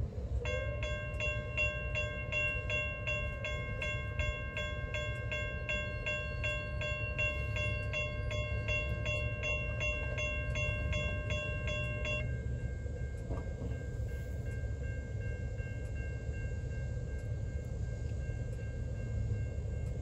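Railroad grade-crossing warning bell ringing at about two strokes a second. It stops about twelve seconds in, leaving fainter steady ringing tones over a low rumble.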